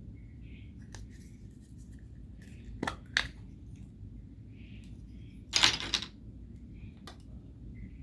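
Hands squishing and stretching homemade slime: scattered sticky clicks and pops, with a louder crackling squelch about five and a half seconds in.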